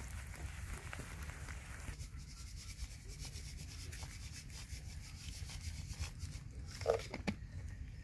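A metal spoon scraping and mashing soft Persian melon flesh in a plastic bowl, then sugar shaken from a plastic container over the pieces, giving a fine, rapid rustling. A short louder knock comes about seven seconds in.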